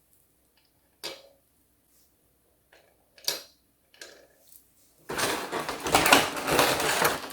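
Small plastic toy pieces being handled: a few separate light clicks on a hard surface, then from about five seconds in a louder, continuous stretch of rustling and clattering.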